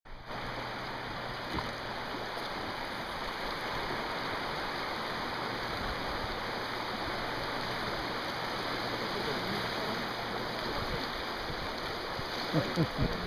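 River water rushing steadily over a shallow riffle, an even, unbroken hiss of moving current.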